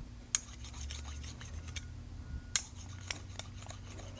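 A wet hand sharpening stone rubbed gently over the inside face of a curved grooming shear blade, steel on stone, honing off the marker along the edge. A few sharp clicks of metal on stone come through, the clearest about half a second in and near two and a half seconds.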